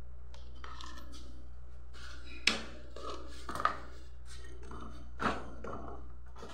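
Kitchen handling at a double boiler: a wooden spoon and utensils knocking and clicking against the steel pots a few times, the sharpest knock about two and a half seconds in, over a steady low hum.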